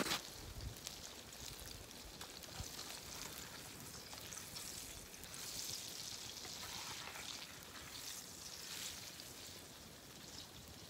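Breaded walleye fillets deep-frying in a pan of hot oil over a wood fire: a faint, steady sizzle that swells a little in the middle.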